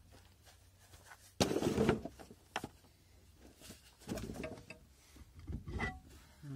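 A loud scuffing rustle about a second and a half in, then metallic knocks and scrapes with short rings as the rear brake drum of a VAZ-2107 is worked loose and pulled off its hub.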